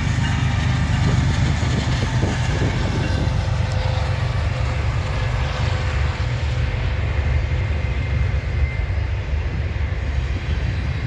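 Diesel locomotives of an eastbound CN freight train approaching and running by, a steady low engine rumble with rail noise.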